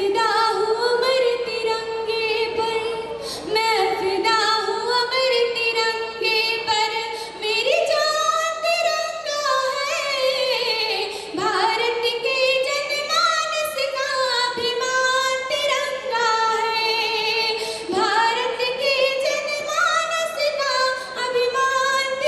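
A girl singing solo into a handheld microphone, in long held notes that slide and waver in pitch.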